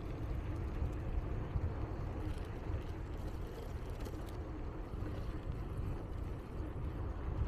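Wind buffeting the microphone of a camera carried on a moving bicycle: a low, uneven rumble that runs on steadily.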